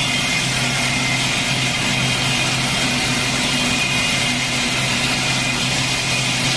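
CNC stone lathe turning a marble column: a steady motor hum under a constant hiss of cutting.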